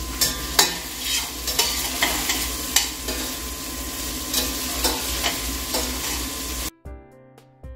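Ground beef frying over medium heat in a stainless steel Fissler rondeau, with a steady sizzle, stirred with metal tongs that click against the pot. Near the end it cuts off abruptly to background music.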